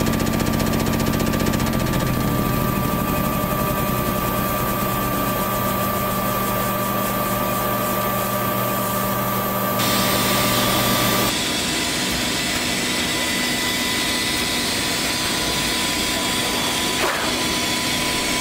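Kodak Magnus 400 thermal CtP platesetter running, its plate drum spinning with a steady mechanical hum and several held tones over a rushing noise. About eleven seconds in the tones drop out, leaving a steady rushing noise.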